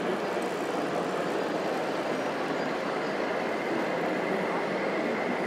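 Steady diesel truck engine sound from the sound module of a radio-controlled Scania tractor unit as it drives pulling a tanker semi-trailer. A faint steady whine joins near the end.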